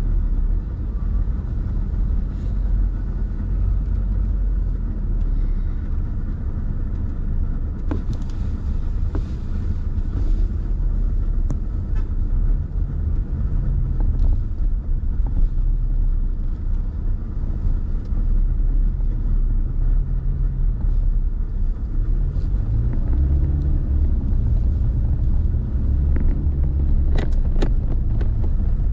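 A car being driven, with a steady low rumble of engine and road noise in which the engine's tone rises and falls a little. A few sharp clicks come near the end.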